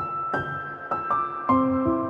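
Gentle background music: single struck notes, played one after another about every half second, each ringing on as it fades.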